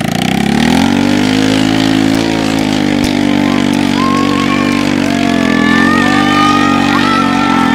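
Small step-through motorcycle engine revving up, then held at high revs while the bike spins donuts in loose dirt. Its pitch dips slightly now and then.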